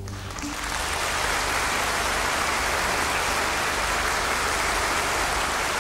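Audience applauding, a dense, steady clatter of clapping that swells in the first second as the orchestra's final chord dies away.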